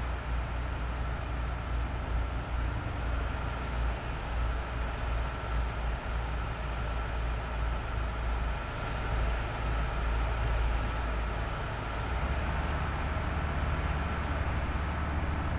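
A bus engine running with a steady low rumble under an even hiss of road or wind noise. The rumble shifts slightly about twelve seconds in.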